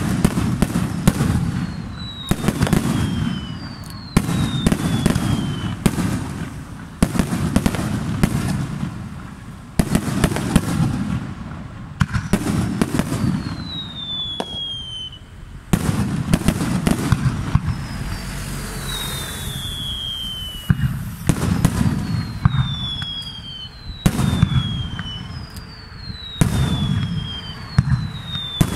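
Fireworks display: aerial shells and ground effects going off in quick succession, sharp bangs over continuous low booming. About eight whistles fall in pitch over about a second each.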